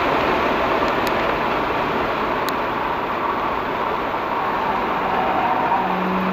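BMW 335i's N54 twin-turbo engine, heard from inside the cabin, running off throttle while the car slows through a corner at track speed, under steady tyre and wind noise. A steady engine tone comes in near the end.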